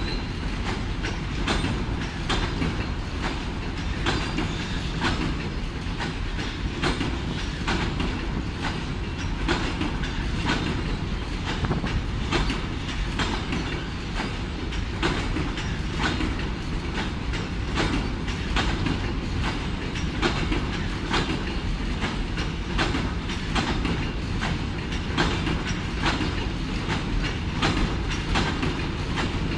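A long freight train of enclosed car-transporter wagons rolling past at steady speed. Its wheels give a continuous clickety-clack over the rail joints on top of a low rumble.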